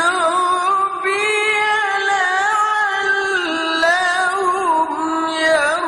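Quran recitation in the melodic tilawah style by a male qari. A single high voice holds long, ornamented notes that waver and glide in pitch, with only brief breaks.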